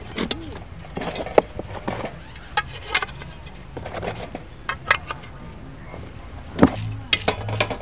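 Scattered light clinks, taps and knocks of a metal pan with wooden handles being lifted out of a padded carry case, with handling rustle and the case lid being moved.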